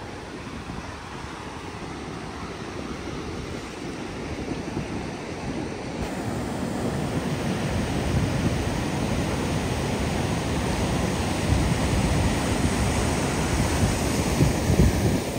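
Ocean surf breaking and washing onto the beach, with wind buffeting the microphone. The rush of the waves grows louder about halfway through.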